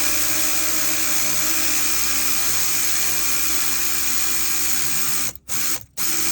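Aircat 811 pneumatic air ratchet with a hex bit running steadily at full speed with an airy hiss, spinning out a stabilizer link. About five and a half seconds in it cuts off, then runs again in two short trigger bursts.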